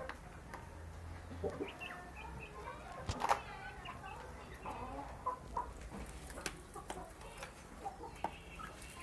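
Young chickens giving short, scattered clucks and calls, with one louder call a little after three seconds in.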